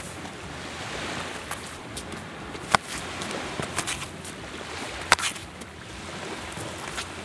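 Steady wash of sea surf, broken by a few sharp clicks, the two loudest nearly three and five seconds in.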